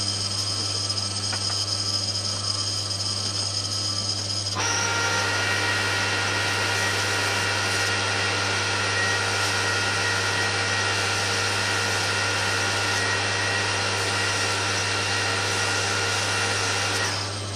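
Metal lathe running steadily while machining a stainless steel hex-bar dome nut; about four and a half seconds in, the cutting tool bites and a louder, noisier cutting sound joins the motor hum, stopping shortly before the end.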